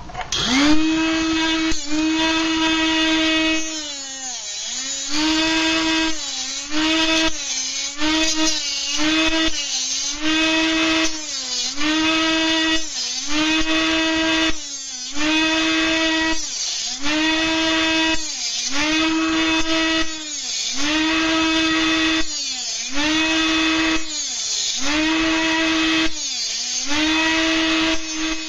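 Dremel rotary tool whining at high speed as it cuts through an aluminium soda can. Its pitch and level dip briefly every second or two as it bites into the metal, then pick back up.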